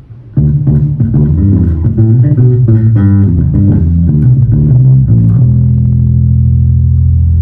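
Electric bass guitar played through a Fender Rumble 25 V3 bass combo amp: a quick run of plucked notes starts about half a second in, then a single low note rings out steadily from about five seconds in.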